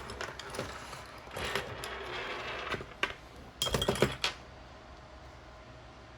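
Small hard objects clicking and clattering as they are handled on a work surface, with a louder cluster of sharp clicks about four seconds in, one of them briefly ringing.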